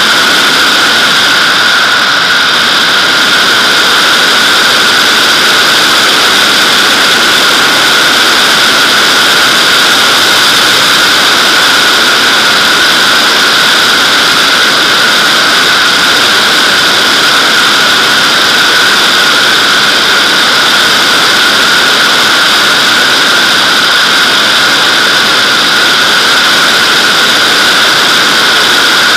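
Loud, steady rush of slipstream wind over a camera mounted on the back of a Nimbus-2 sailplane's fuselage, with a steady whistling edge in the hiss, as the glider descends with its brake parachute deployed.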